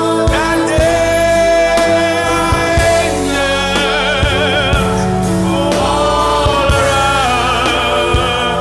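Gospel worship music: a singer holds long, wavering notes over a band with a regular drum beat.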